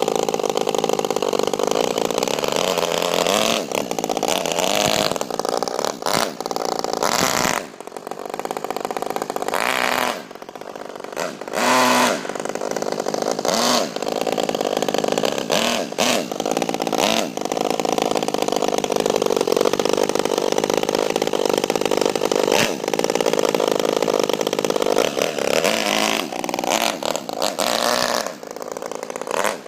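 Modified Saito FA-50 four-stroke glow engine in an RC car, running continuously with the throttle opened and closed, so its pitch rises and falls with brief dips and surges.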